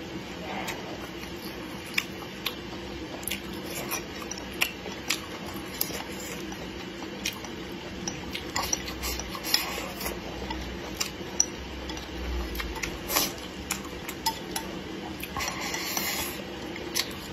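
Wooden chopsticks clicking and scraping against a ceramic bowl as food is picked up and the bowl is scraped clean, with a short run of slurping near the end as the bowl is tipped to the mouth.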